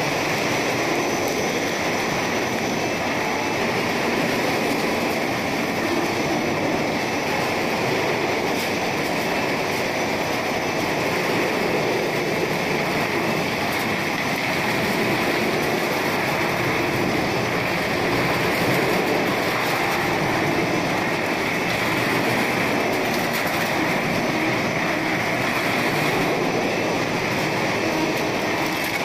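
Snack food production line machinery running: dough sheeter rollers and conveyor belts making a steady, unbroken mechanical din.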